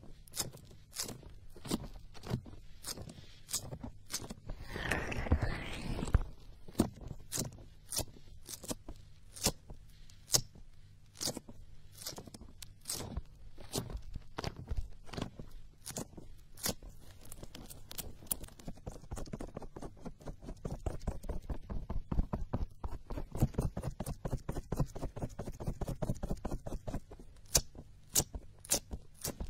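Fingertips rubbing and pressing on the silicone ears of a binaural dummy-ear microphone, heard right at the ear: a run of sharp clicks, about two a second at first and quicker in the second half, over low muffled thumps, with a short stretch of rubbing about five seconds in.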